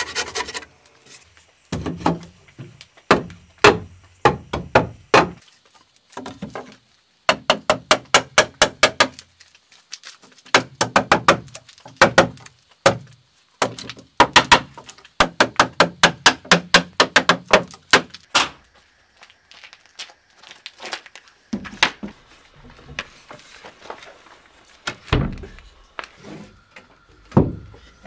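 Hammer blows on wood in quick runs of about four strikes a second, with pauses between the runs and a few single knocks near the end.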